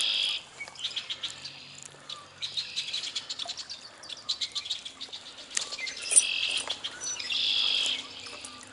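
Songbirds singing: short trilling phrases about a second long, repeated five or so times, with scattered sharp clicks and rustles between them.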